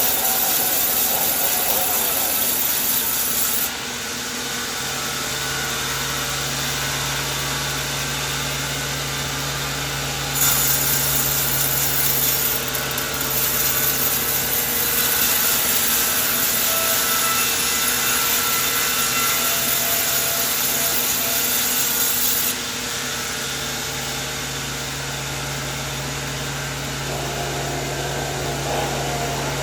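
Sawmill saw cutting through coconut wood, a steady sawing noise over a low machine hum. The sound shifts abruptly in level a few times.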